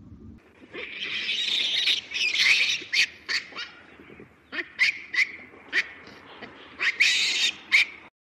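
Macaque monkeys calling: harsh, shrill screeches for the first few seconds, then short sharp squeaks that each drop in pitch, unevenly spaced, and a last screech near the end.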